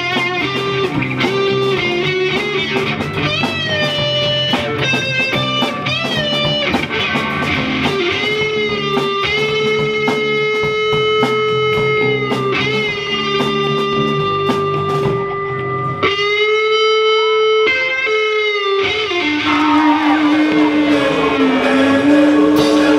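Live instrumental rock from an electric guitar, bass guitar and drum kit, the guitar holding long, bending notes over the rhythm. About two-thirds of the way through, the bass and drums drop out for a few seconds, leaving the guitar's held notes alone, before the full band comes back in.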